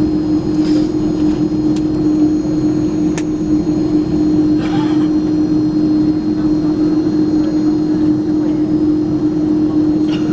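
Cabin noise inside an Airbus A300 airliner taxiing: a steady hum of the engines at idle and the air-conditioning, with one constant low droning tone over it.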